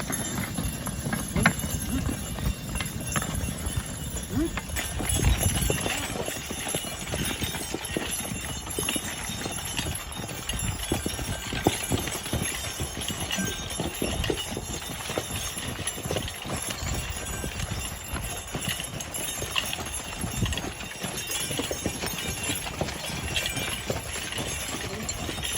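Team of Belgian draft horses walking in a plough, hooves landing in many irregular thuds.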